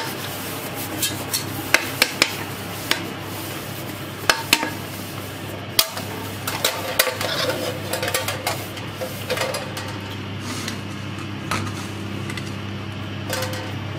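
A hand rubbing grease over a round metal baking plate, with scraping and many sharp clicks and knocks as the plate shifts and jewellery taps its rim. Most of the knocks fall in the first ten seconds, over a steady low hum.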